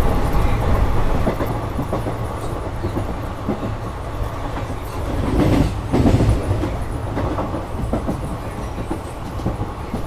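Passenger train coaches running on the track, heard from an open coach doorway: a steady low rumble with the clickety-clack of wheels knocking over rail joints. A louder cluster of knocks comes about five and a half seconds in.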